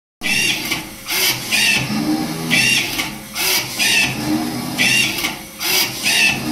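Automatic cotton wick making machine running, its mechanism cycling with a sharp mechanical clatter that repeats about once a second.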